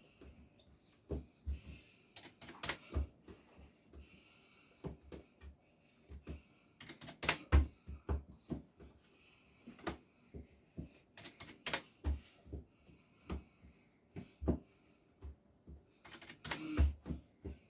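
Irregular sharp clicks and knocks, some with a dull thud, coming in uneven clusters, with faint breathing-like hiss between them.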